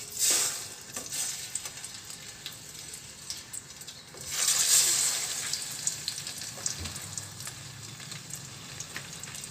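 Chicken wings frying in hot oil in a stainless steel pot. The sizzle surges as a wing is lowered in with tongs just after the start and again about four seconds in, then settles to a steady sizzle.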